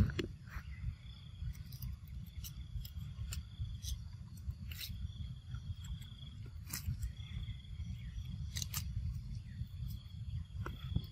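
Macaques biting and chewing a crisp green vegetable, a scatter of short crunching clicks, over a steady low rumble and a faint high whine.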